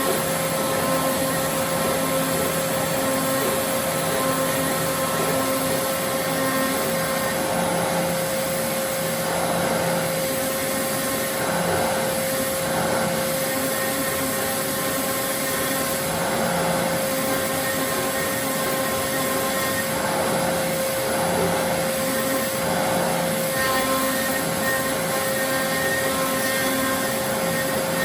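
Fox Alien XE Pro CNC router running, its 1.5 kW spindle giving a steady high whine. Lower motor tones switch on and off as the axes move, with intermittent rushing noise over the top.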